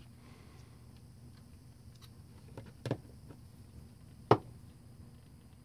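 Small hard clicks and knocks of a plastic project box and small parts being handled on a workbench, with two sharp clicks about three and four seconds in, the second the loudest.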